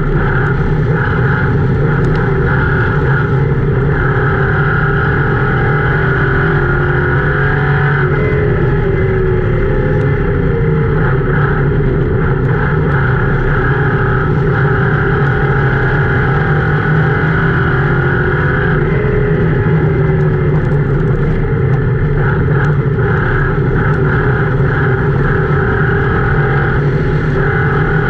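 Ford Crown Victoria V8 engine running hard under race load, heard from inside the race car's cabin. It is loud and steady, and its pitch sags and climbs again twice, about eight and nineteen seconds in.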